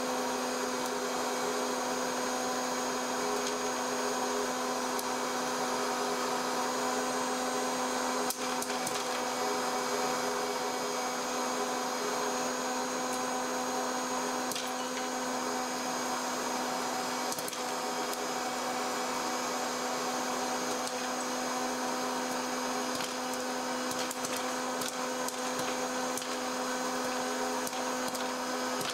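Snoopy Popcorn Push Cart hot-air popcorn machine running: a steady fan hum with rushing air, and sharp pops of kernels bursting, scattered at first and coming more often near the end.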